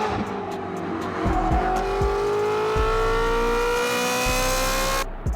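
Ferrari 430 Scuderia's naturally aspirated V8 accelerating, its exhaust note rising steadily in pitch for about three and a half seconds before cutting off suddenly near the end. A music beat runs underneath.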